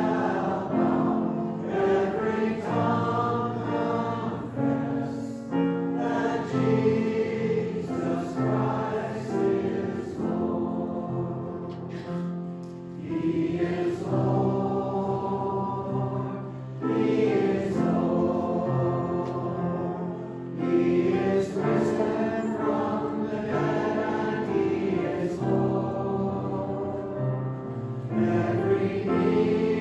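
A choir singing a sacred song in harmony, phrase by phrase with short breaks between the lines.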